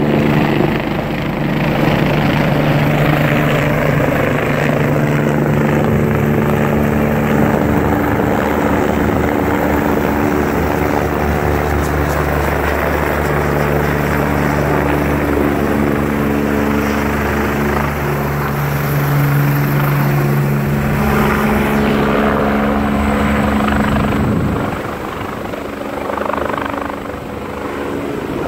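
Police helicopter flying low overhead, its rotor and engine noise loud and steady with a droning hum. The noise drops off noticeably near the end as the helicopter draws away.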